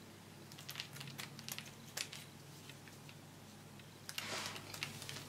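Scissors snipping through thin wafer paper strips: a series of small crisp cuts in the first couple of seconds, then a brief rustle about four seconds in.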